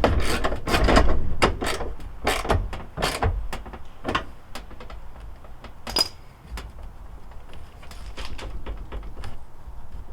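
Repeated creaking and clicking from the headlight mounting of a 2013 Mazdaspeed 3 as the front end is shimmied by hand. The creaks come thick and fast at first, then thin out to sparser clicks. The noise sounds like an old bed and comes from snapped headlight brackets.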